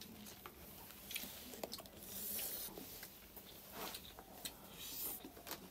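Faint eating sounds: scattered clicks and scrapes of plastic spoons against plates, with chewing, in a small room.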